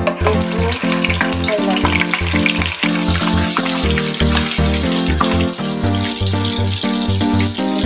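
Tofu frying in hot oil in a nonstick wok, the sizzle starting as the first piece is slid in, under background music with a steady beat.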